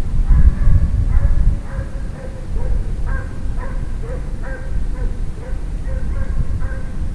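Russian piebald hound baying over and over, about two bays a second, as it runs a hare on scent. Under it is a heavy low rumble.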